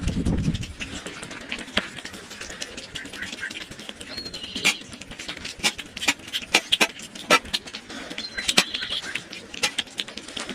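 A cat eating: irregular chewing and mouth clicks and smacks, with a low bump in the first second.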